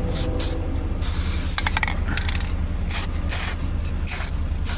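Aerosol can of SEM Classic Coat black coating spraying onto a rubber steering wheel in a series of short hissing bursts, with one longer pass about a second in.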